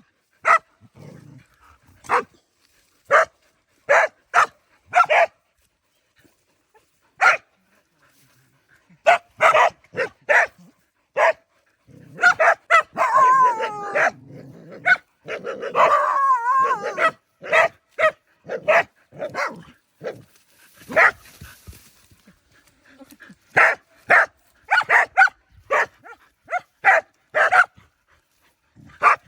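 Several dogs barking at a snake in short, sharp barks that come in irregular clusters with brief pauses. Around the middle the barking thickens and turns into a few seconds of wavering, drawn-out whining yelps.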